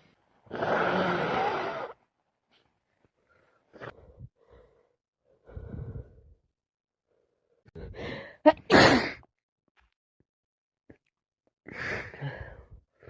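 A woman in a bout of sneezing. A long noisy breath out comes near the start, then a few short sniffs and breaths, and one sharp, loud sneeze about eight and a half seconds in. Another noisy breath follows near the end.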